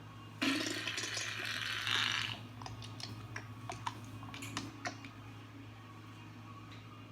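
Wet, sputtering fart sound effect: a sudden noisy blast about half a second in that lasts about two seconds, then a run of crackling, splattering clicks that fade out.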